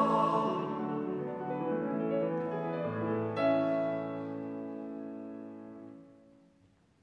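The choir's held final note dies away and a grand piano plays the closing bars alone, ending on a chord struck about three and a half seconds in that rings and fades out.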